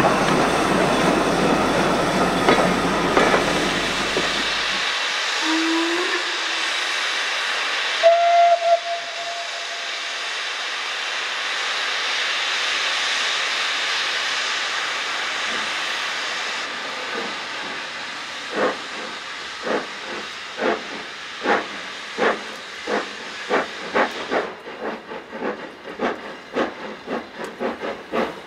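Coaches rumbling past over the rails, then a steam locomotive's whistle gives a short blast and steam hisses steadily from the engine. The locomotive then starts away with its train, its exhaust beats coming slowly at first and quickening to about two a second.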